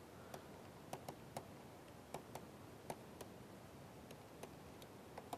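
A dozen or so faint, irregular ticks of a stylus tip tapping on a tablet screen while writing by hand, over near-silent room tone.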